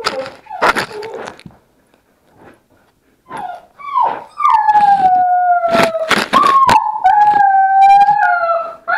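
Puppies whining and howling close to the microphone: a few short yelps and knocks at first, then from about four seconds in long drawn-out howls that slide down in pitch, one after another, with sharp knocks among them.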